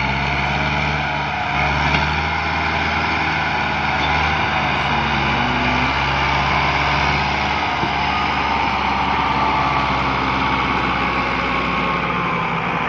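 Massey Ferguson 265 tractor's three-cylinder diesel engine running steadily and working hard while pulling an overloaded sand trolley.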